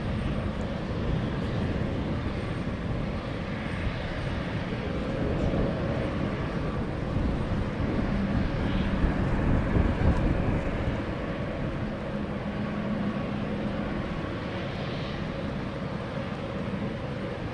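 Twin-engine turboprop airliner on final approach and landing: a steady engine and propeller drone that swells slightly about nine to ten seconds in, then eases as the aircraft rolls along the runway.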